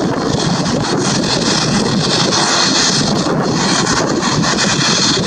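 Steady rushing noise of wind buffeting the microphone, over the distant engine noise of a Boeing 737-800 rolling along the runway after landing.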